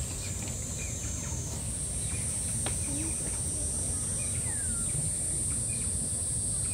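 Steady background noise with a continuous high-pitched hiss that jumps slightly higher in pitch about a second and a half in, and a few faint, short chirps.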